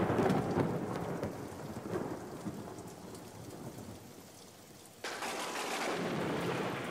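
Thunderstorm: rumbling thunder and rain hiss that fade away over the first few seconds, then a fresh stretch of rain noise starts abruptly about five seconds in and slowly dies down.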